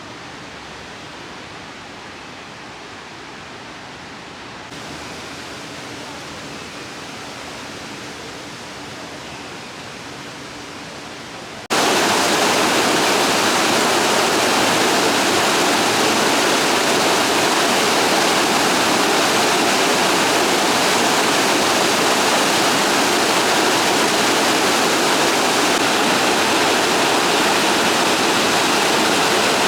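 Steady rush of splashing water, an even hiss with no rhythm; it jumps much louder and brighter about twelve seconds in.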